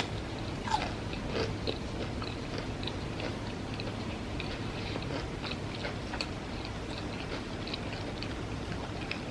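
A person chewing and biting fried chicken tenders and fries close to the microphone: a run of small wet mouth clicks, with one louder bite under a second in.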